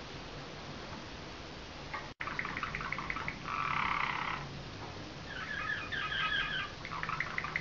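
Slavujar canary singing: fast trills and rolls, with one dense, buzzy roll near the middle. The song starts about two seconds in, after a faint hiss and a very brief dropout.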